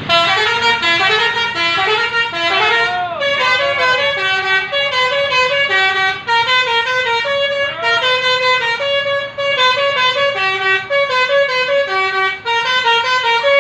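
Bus 'telolet' (basuri) multi-tone horn playing a melody: a continuous run of loud horn notes stepping from one pitch to another, several notes a second.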